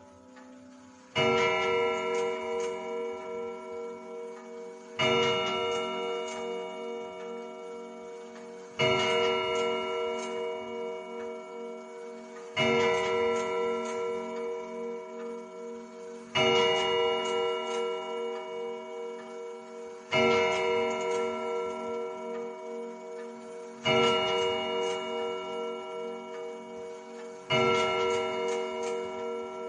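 Grandfather clock striking the hour: eight slow, evenly spaced strokes, each ringing out and fading before the next, over steady ticking.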